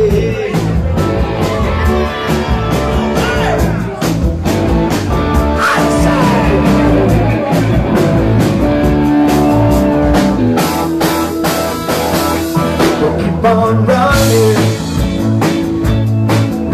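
Live rock band playing, with a drum kit keeping a steady beat under bass guitar and keyboards.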